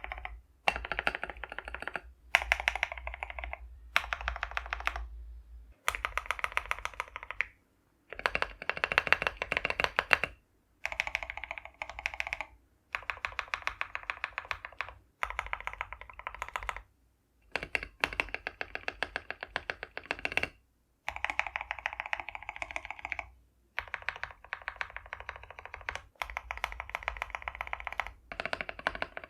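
Stabilized keys on a mechanical keyboard being pressed over and over in rapid clicks, in a dozen or so short runs with sudden silent breaks between them: a stabilizer sound test.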